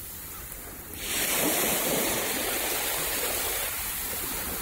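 Ocean surf washing ashore, a steady rush of waves that swells about a second in and then slowly eases.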